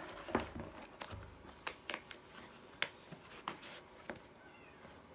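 A cardboard product box being handled: a scatter of light taps and clicks with soft rustling as the box and its sleeve are slid and pressed together.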